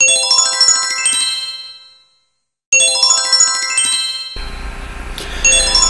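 Sparkling chime sound effect: a quick run of bright tinkling notes that rings out and fades, then starts again after a short break of silence. A low steady hum comes in a little past the middle.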